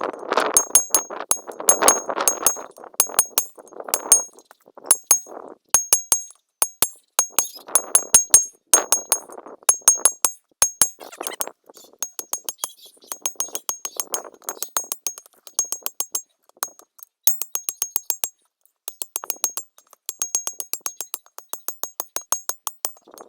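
Hand hammer striking hot steel on an anvil, the anvil ringing high with each blow, about two to three blows a second in runs with short pauses between them.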